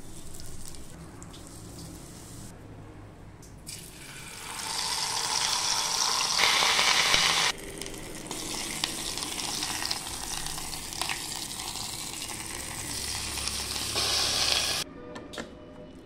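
A steel pot of food on the stove hissing and sizzling loudly as dry grains go into the frothing liquid; the sound stops abruptly. Then a steel spoon stirs and scrapes the thick cooked mixture in the pot, with scattered sharp clicks of metal on metal.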